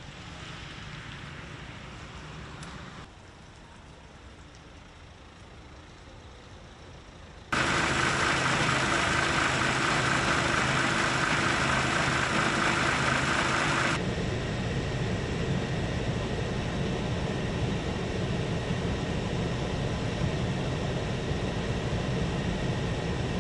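Fire engine's diesel engine idling with a steady hum. It cuts in suddenly about a third of the way through, after a quieter stretch of outdoor background.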